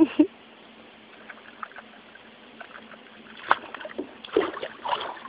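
Light splashing and sloshing of water in a small inflatable pool as a young raccoon swims and paddles, scattered small splashes coming more often in the second half.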